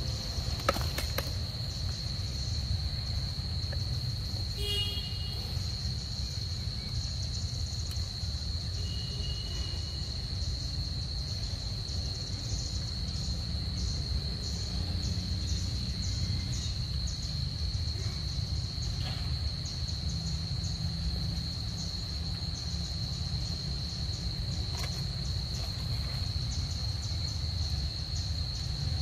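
Steady high-pitched insect drone, with a faster pulsing chirr above it, over a constant low rumble. A brief squeak about five seconds in.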